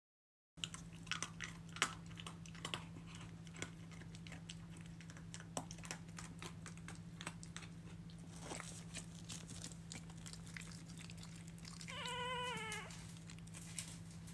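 A steady low hum with faint scattered clicks and rustles. About twelve seconds in comes one short, wavering animal cry, a mewing whine.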